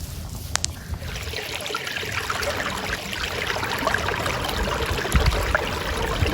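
Small woodland stream running and trickling, with a pair of sharp clicks about half a second in and low rumbles near the end.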